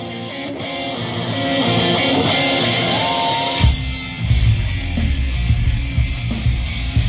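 Live rock band: electric guitar playing on its own without drums, growing louder, with a sliding note near three seconds in. Then drums and full band crash back in with a loud hit at about three and a half seconds and keep driving to the end.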